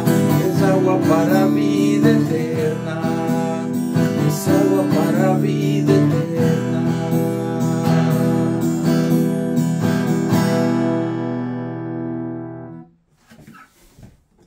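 Acoustic guitar strummed in a steady rhythm as the closing bars of a song. A final chord is left ringing and fading, then cut off short about 13 seconds in, with only faint scratchy handling noises after it.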